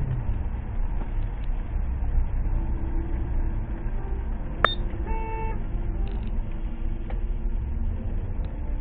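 Steady road and engine rumble of a car driving, heard from inside the cabin, with a sharp click about four and a half seconds in, then a short car horn honk about half a second long.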